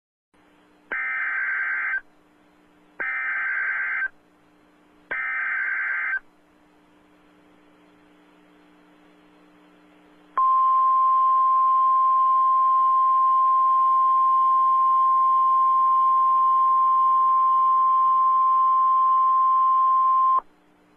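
Emergency Alert System warning: three buzzy bursts of SAME header data, each about a second long, then after a pause a single steady alert tone that lasts about ten seconds and cuts off. It signals a severe thunderstorm warning.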